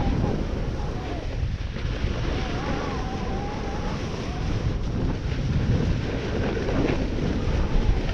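Wind buffeting the microphone of a snowboarder's action camera, with the snowboard's edges scraping and hissing over hard-packed snow as it carves turns downhill.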